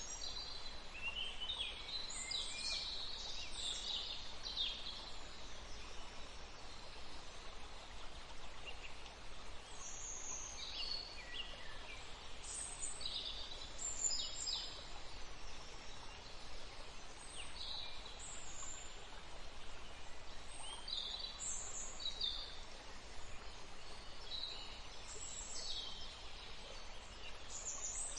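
Steady wash of running water, with small birds chirping and whistling in short high calls throughout.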